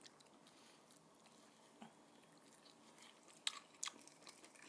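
Biting and chewing crispy fried chicken wings: faint chewing, then a few sharp crunches about three and a half seconds in.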